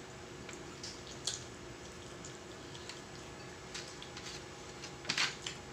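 Eating sounds: soft wet mouth clicks and smacks from chewing, a few scattered ones and a short cluster about five seconds in.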